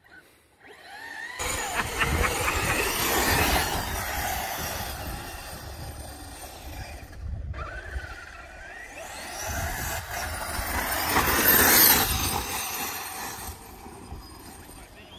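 Losi 5ive-T large-scale electric RC truck with a Lehner brushless motor running on a sandy track. The motor whine rises and falls with the throttle over tyre and sand noise and a steady low rumble. It starts abruptly about a second in and is loudest twice, early on and again near the end.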